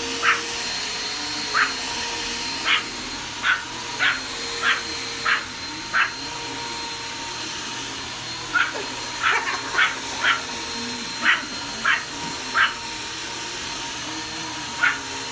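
A vacuum cleaner running steadily with a constant whine while a dog barks at it in short, sharp barks, about eighteen in all, in quick runs with a pause of about two seconds near the middle.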